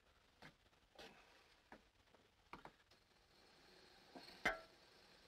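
Faint clicks and light knocks of things being handled at a bathroom sink, then one sharper, briefly ringing metallic clink about four and a half seconds in.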